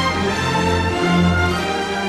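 Orchestral music with held string notes over a steady low bass.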